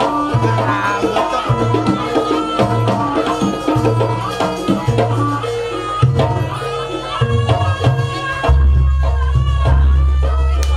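Traditional East Javanese jaranan music from a live ensemble: hand-drum patterns with a melody line above. About eight and a half seconds in, a deep sustained low tone enters under the drums.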